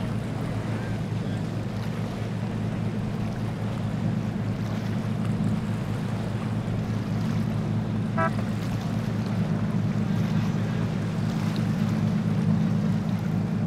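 Motorboat engines running steadily as boats pass at speed, with the wash of their wakes and wind buffeting the microphone.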